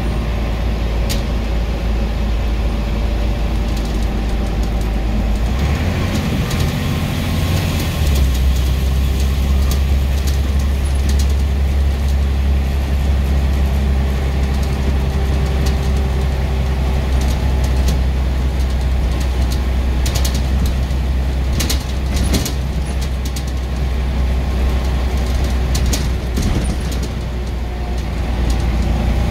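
Scania N94UB bus diesel engine running with a deep, steady drone. Its note changes about six seconds in, then settles into a stronger steady hum. Sharp clicks and rattles come and go, mostly from about twenty seconds in.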